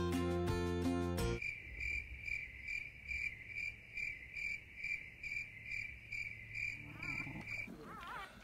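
Music stops about a second in. A cricket then chirps steadily, about two to three high chirps a second, and cuts off abruptly near the end, where a newborn puppy gives a few squeaky whines.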